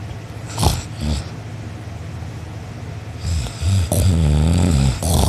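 A person snoring loudly in deep sleep: two short snorts about half a second and a second in, then a long, low snore from about three seconds in until near the end.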